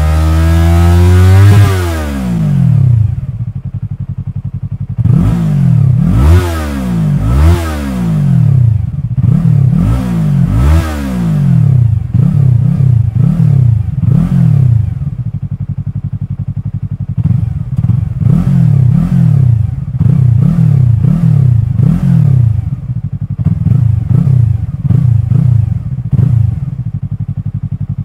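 Yamaha YZF-R3's parallel-twin engine revved while standing, through an Akrapovic carbon slip-on silencer with no baffle fitted. A held high rev falls back to idle, then comes a string of sharp throttle blips, the revs rising and dropping quickly, followed by a long run of quicker, smaller blips. The tone is deep and not obnoxiously loud.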